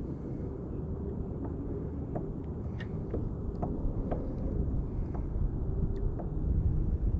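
Wind buffeting the microphone as a steady low rumble, with a scattering of light clicks and knocks every half second to a second.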